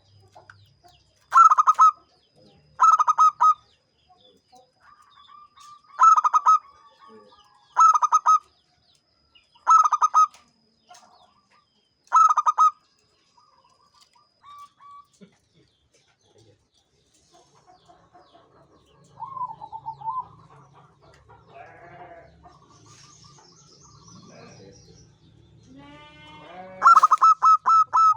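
Zebra dove (perkutut) singing: short bursts of rapid, staccato cooing notes repeated about every two seconds. Softer scattered calls follow in the middle, and a louder, faster run of notes starts near the end.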